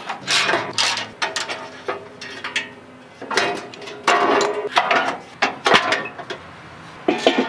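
Hand ratchet wrench clicking in several quick runs with short pauses between them, as it loosens the bolts holding the 4Runner's underbody skid plate.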